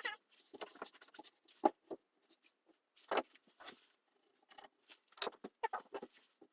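Scattered, irregular knocks, clicks and rustling of wood pieces and tools being handled on a workbench, with a sharper knock about a second and a half in and a cluster of knocks around three seconds.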